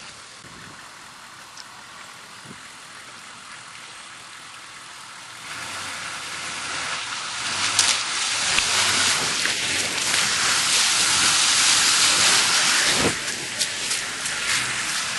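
Small bus driving through shallow floodwater, its wheels throwing up water with a rushing splash. Faint at first, the splashing rises sharply about five and a half seconds in and stays loud as the bus comes close.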